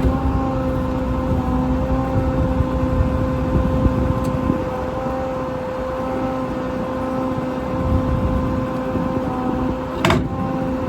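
Service truck engine running with a steady whine from the hydraulic system as the maintainer crane is worked. There is one sharp clank about ten seconds in.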